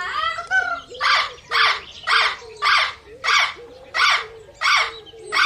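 A parrot calling: a rising whistle, then a steady series of harsh squawks about one every half second.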